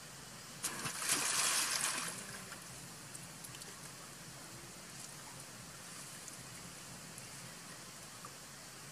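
Macaques splashing in a pool: a sudden splash about a second in that lasts a second and a half, over a steady trickle of running water.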